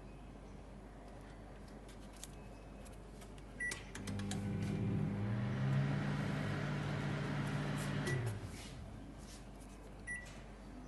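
Microwave oven keypad beeping, then the oven running with a steady hum for about four seconds. The hum rises in pitch as it starts and falls as it stops, with a beep at each end and one more beep near the end.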